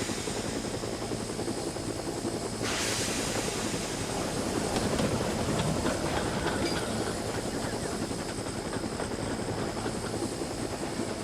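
Steam locomotive running along the rails, with a burst of steam hiss about three seconds in.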